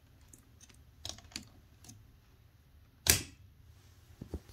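Light plastic clicks and taps from VEX IQ robot parts being handled, with one sharper, louder click about three seconds in and two more small clicks near the end.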